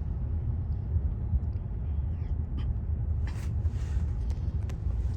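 Steady low rumble of a car driving on a paved road, heard from inside the cabin, with a few faint clicks and a brief hiss about three seconds in.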